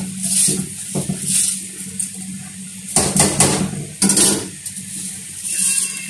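Soaked basmati rice dropped by the handful from a steel tray into boiling stock in a large aluminium pot: several wet swishes and splashes, with the tray and a metal spoon clinking against the pot.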